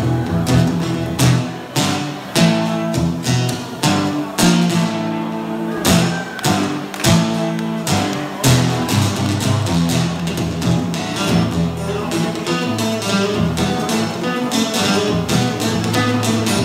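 Acoustic guitar played solo in an instrumental blues break, with repeated sharp strums and picked notes ringing between them.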